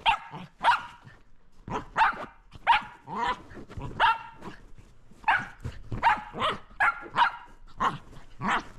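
Shetland sheepdog barking in excited play: a long run of short, sharp barks, about two a second, with a brief pause about a second in.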